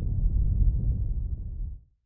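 Deep, low bass rumble of a logo-intro sound effect, fading out near the end.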